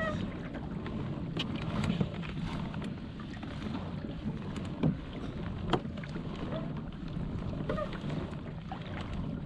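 Water moving against a pedal kayak's hull with wind on the microphone, and a few sharp knocks about five and six seconds in.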